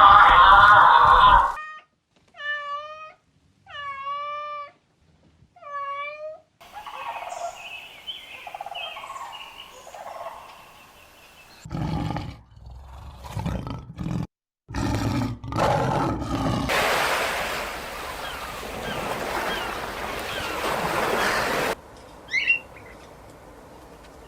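Dogs and puppies making a run of different sounds in short clips: three short high whining calls, then a series of short loud barks, then a long rough growl.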